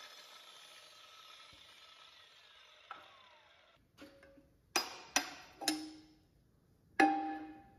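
A steady hiss fades away over the first few seconds. Then come about five sharp metallic clanks of steel parts being knocked or set down, each ringing briefly, the loudest near the end.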